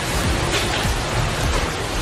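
Storm wind and rain making a dense, steady rushing noise, over background music with a deep, regular thudding beat.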